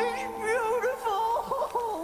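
Background music: a wavering, trilling melody over steady held notes.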